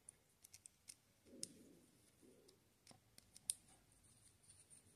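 Faint, scattered small metal clicks of a hex (Allen) key turning in the clamp screws of a Surefire X300 Ultra weapon light's rail mount as they are loosened, with one slightly louder tick about three and a half seconds in.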